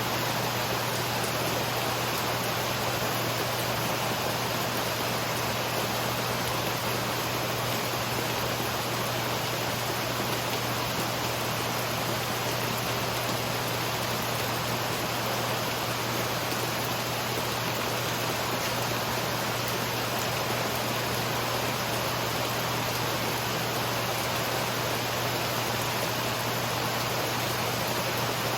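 Steady, even rain falling during a summer thunderstorm, with no thunder or changes.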